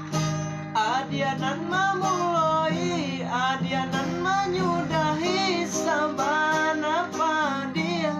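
Acoustic guitar strummed, with a child's high singing voice entering about a second in and holding a long, sliding, ornamented melodic line over the guitar.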